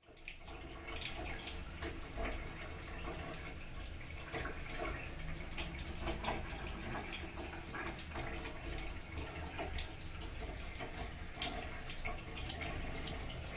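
Faint background noise with many small scattered clicks and light handling knocks, and two sharper clicks near the end.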